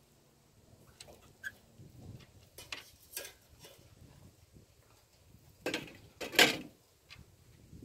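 Scattered small clicks and scrapes of fingers picking the last pin feathers from a scalded, plucked rooster, with two louder rustling scrapes late on.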